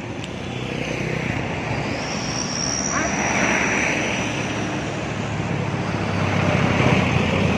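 Road traffic: vehicle engines passing on the road, swelling in level twice, with a faint high whine in the middle.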